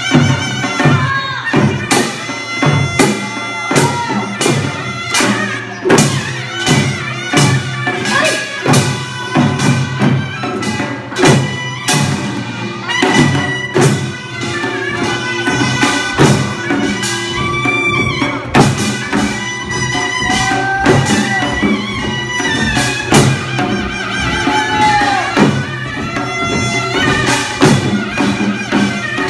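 Korean traditional music: a nasal, reedy melody with held notes over frequent drum strokes.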